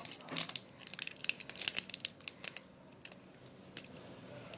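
Foil Pokémon booster pack wrapper crinkling and crackling in the hands as it is worked open: a run of irregular sharp crackles, thinning out about halfway through.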